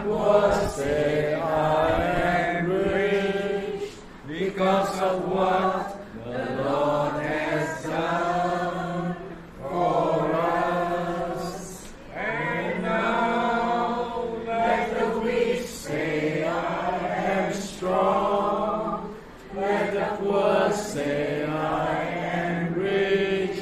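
A small mixed group of men and women singing together, in sung phrases of about two seconds broken by short pauses for breath.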